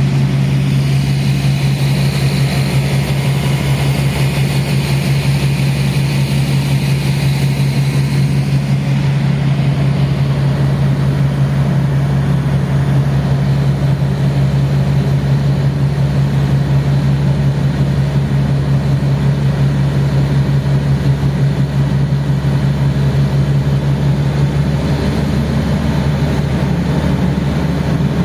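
Engine of a vehicle driving steadily along, heard from a camera on its roof: a continuous low drone.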